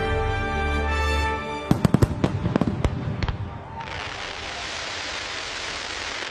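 Fireworks bursting: a rapid volley of sharp bangs about two seconds in, followed by a dense, steady hiss of crackling from about four seconds on. Music holding sustained tones plays at the start.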